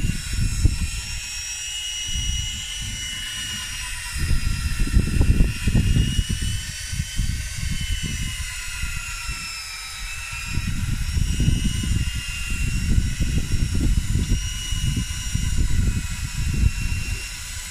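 Wind buffeting the microphone in uneven gusts on an open boat at sea, with a thin high whine wavering slowly up and down in pitch behind it.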